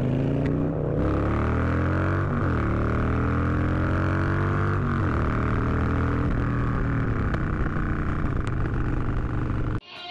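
Motorcycle engine accelerating under load, its pitch climbing and dropping back a few times as it shifts up through the gears. The sound cuts off abruptly near the end.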